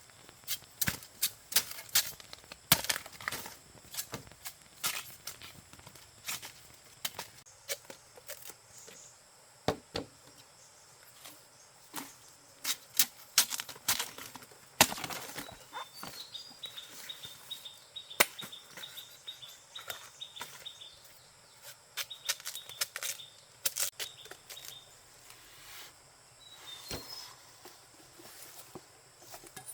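Irregular sharp cracks, snaps and rustles from someone working and moving in dry bamboo-forest litter. From about the middle, a bird gives a fast, even run of high chirps for some eight seconds, and again briefly near the end.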